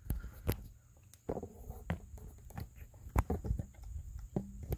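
Scattered light metallic clicks and knocks of hand tools, a ratchet and socket extension, being handled in the engine bay, irregular, with a small cluster about three seconds in.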